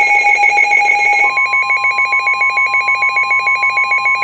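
Electronic weather-radio alert tones: a fast, even pulsing beep throughout, joined about a second in by a single steady held tone, the weather radio's 1050 Hz warning alarm tone that signals a warning is about to be read.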